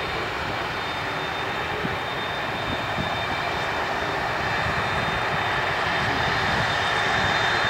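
Lockheed Martin C-5M Super Galaxy's four GE F138 (CF6-80C2) turbofans running at low power as the aircraft rolls along the runway: a steady high whine over a broad rush, growing slightly louder near the end.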